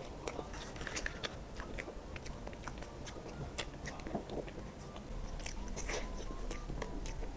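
Close-miked eating sounds of a dessert mukbang: wet chewing with many small mouth clicks and smacks, irregular throughout.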